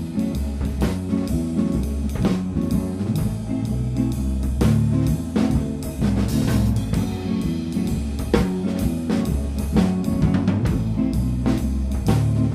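Instrumental band of guitar, bass guitar and drum kit playing a steady groove, in a rough mix of the drum and live scratch tracks, with no vocals.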